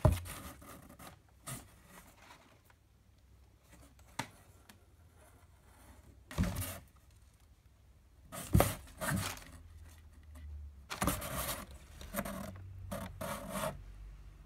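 A cat scrabbling and pouncing inside a cardboard box: short bursts of scratching and scraping on cardboard with paper rustling and bumps, the loudest a sharp thump at the very start.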